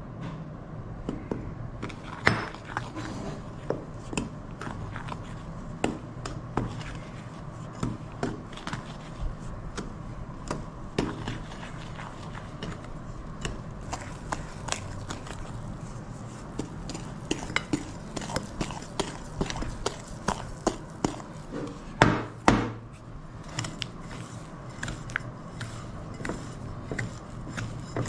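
Wooden spatula stirring and folding flour into thick cookie dough in a glass bowl, with irregular knocks and scrapes of the spatula against the glass. The sharpest knocks come about two seconds in and twice in quick succession around twenty-two seconds in.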